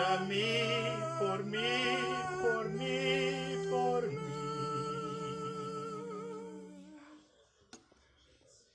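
One man's voice, multi-tracked into an a cappella ensemble, singing in close harmony with vibrato on the upper parts. About four seconds in the parts settle on a held chord that fades out about seven seconds in, leaving near quiet.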